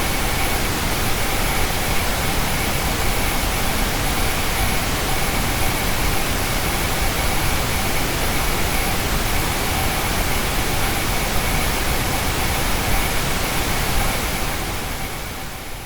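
Engineered tinnitus-masking noise: a steady, even rushing hiss spread from low to high pitch, with faint steady tones running through it. It fades out over the last two seconds.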